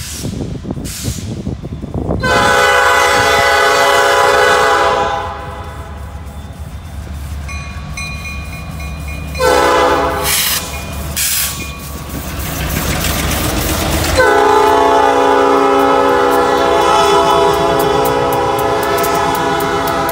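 Diesel locomotive air horn sounding the grade-crossing signal: a long blast, a short blast, then a long blast held as the locomotive reaches the crossing. Between blasts the locomotives' engines rumble and the wheels clatter on the rails.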